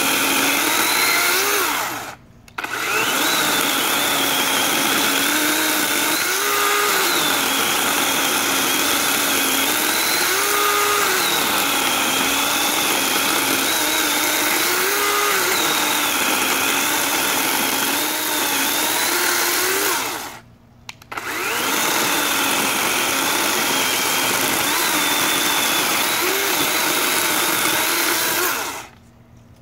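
DeWalt DCCS620 20V cordless chainsaw with a 14-inch bar and chain, its motor whining steadily as it cuts through a log. The pitch rises and falls a few times as the cut goes on. The saw stops briefly twice, then shuts off near the end.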